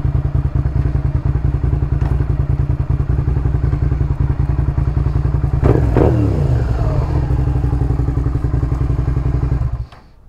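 2006 Suzuki SV650's V-twin engine running steadily with an even low pulse. About six seconds in a pitch sweeps sharply downward, and the sound cuts off abruptly just before the end.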